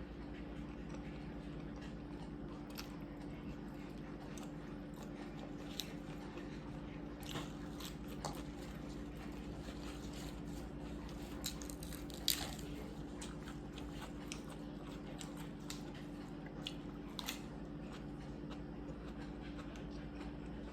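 Someone eating mixed seafood: soft chewing and crunching with scattered small sharp clicks, the loudest about twelve seconds in, over a steady low hum.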